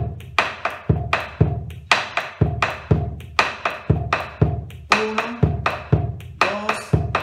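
Argentine bombo legüero played with two wooden sticks in the 3/4 gato and chacarera accompaniment rhythm, basic form 3. Deep booms on the hide head alternate with dry clicks of a stick on the wooden rim, several strokes a second in a steady repeating pattern.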